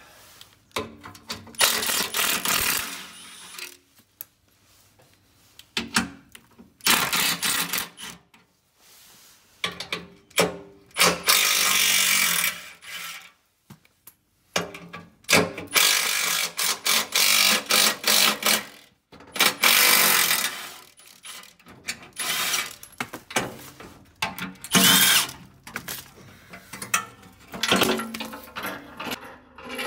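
Milwaukee cordless impact wrench running in repeated bursts a second to a few seconds long, with pauses between, as it backs out the bolts holding a truck's skid plate.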